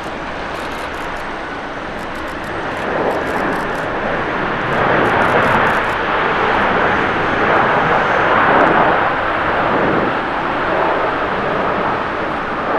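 Boeing 777-300ER's GE90 jet engines roaring as the airliner rolls down the runway after touchdown. The roar swells about three seconds in and stays loud.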